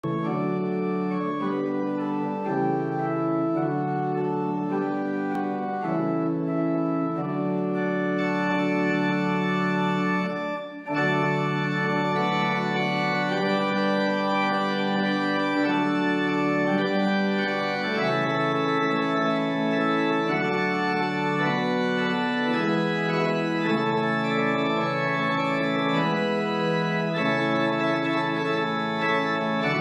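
Pipe organ playing slow, sustained chords that change every second or two, with a brief pause about eleven seconds in.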